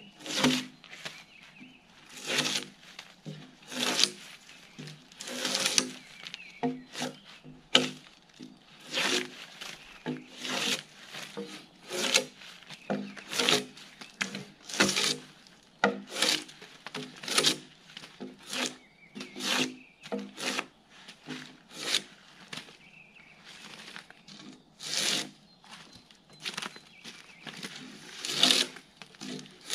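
Gränsfors Bruks drawknife stripping bark from a log. Each pull of the blade is a short rasping scrape, repeated evenly about every one to two seconds.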